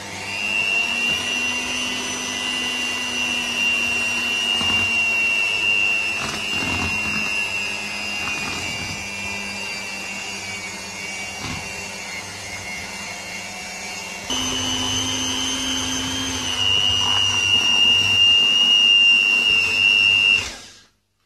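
Electric hand mixer running steadily with its beaters in chocolate cake batter in a stainless steel bowl, a constant motor whine. About two-thirds of the way through it gets louder and slightly higher, and it cuts off just before the end.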